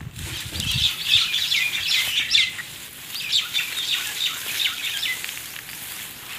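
Handfuls of freshly cut grass rustling and crackling as they are scooped up by hand, with bird chirps mixed in.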